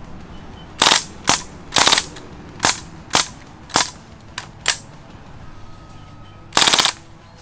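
A rifle fired repeatedly up into a tree at iguanas: about nine sharp cracks in quick, uneven succession, the last one near the end longer than the rest.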